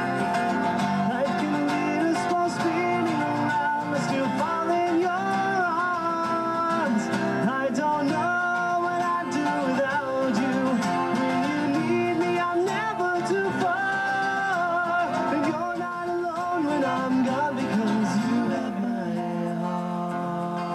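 Live acoustic rock band playing: two acoustic guitars strummed and picked, with a lead melody line running over the chords.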